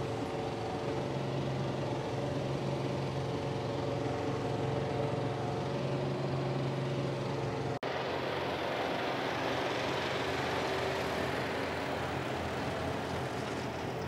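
John Deere 4075R compact tractor's diesel engine running under load while driving a 10-foot flex-wing rotary mower through tall grass: a steady drone with a low hum. About eight seconds in the sound cuts off abruptly for an instant, then continues as a rougher, noisier rush with less of the hum.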